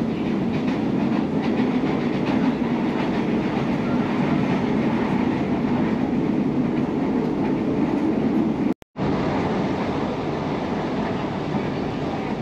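Steady running noise of a KRL electric commuter train, heard from inside the carriage as it travels along the line. It cuts out completely for a moment about nine seconds in.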